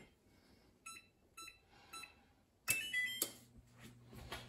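Electric range's control panel beeping three times as the oven temperature is keyed in, then playing a louder short chime of a few notes as preheating is started. A steady low hum begins with the chime and keeps going as the oven starts to preheat.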